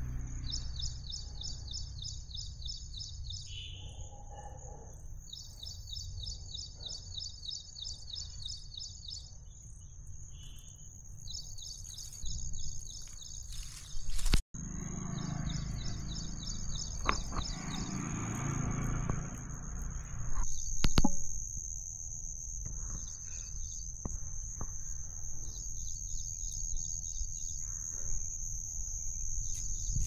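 Outdoor ambience of insects and birds: runs of rapid high chirps lasting a second or two, repeating throughout, and from about halfway on a steady high-pitched insect trill, over a low rumble of wind on the microphone. The sound cuts out for an instant about halfway through.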